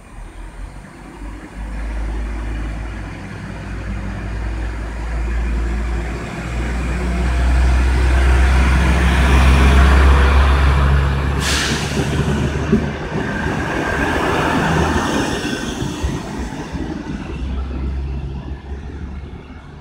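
PESA SA132 diesel railbus passing close along the platform: a deep diesel engine drone that builds to its loudest about halfway through and fades as it pulls away. A short hiss comes just past the middle.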